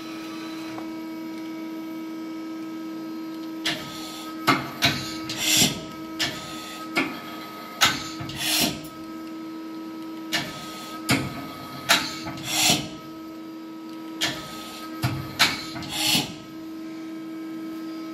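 Daewoo Puma 12L CNC lathe's tool turret indexing from station to station, four times in a row, each time a cluster of sharp clunks and a short hiss, over the steady hum of the running machine.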